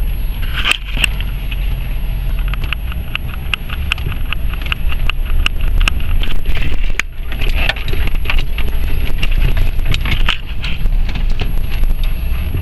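The 6.0 L Vortec V8 of a 2004 Chevrolet Silverado 2500HD pickup, heard from inside the cab while driving: a steady low engine drone with road noise, and frequent sharp clicks and rattles throughout.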